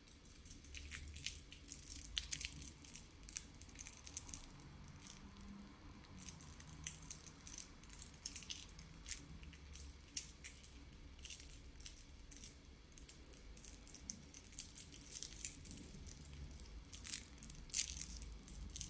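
Thin plastic packaging crinkling and rustling in scattered short crackles and clicks as an accessory cable is unwrapped from its bag.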